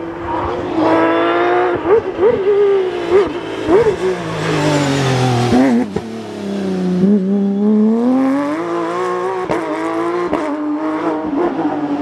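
Porsche 911 GT3 RS rally car's flat-six engine at full throttle on a special stage. Its pitch climbs through the gears, drops under braking, then climbs again, with a few sharp cracks in between.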